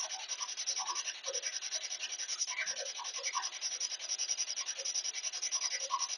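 SB7 spirit box sweeping through radio stations: rapid, choppy bursts of static pulsing many times a second, with brief fragments of radio sound.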